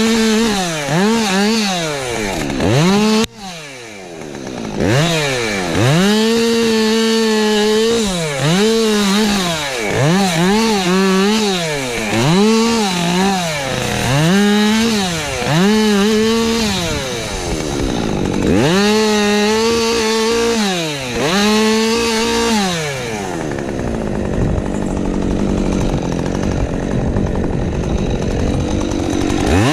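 Husqvarna 550XP Mark II two-stroke chainsaw revved up and down again and again, with stretches held at full throttle. About three seconds in it drops out suddenly for a moment. Near the end it falls to a low idle for several seconds, then revs up again.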